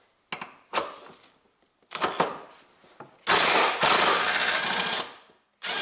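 Ratchet wrench undoing an engine-mounting bolt: a few separate clicks, then loud rapid ratcheting for about two seconds from a little past halfway as the loosened bolt is run out, starting again just before the end.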